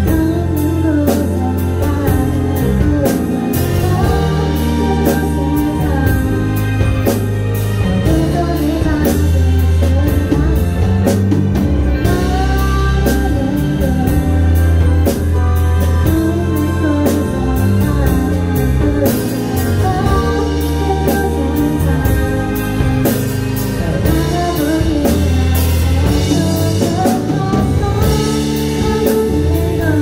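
A live song performance: a female singer's voice over keyboard and band accompaniment, with a steady beat.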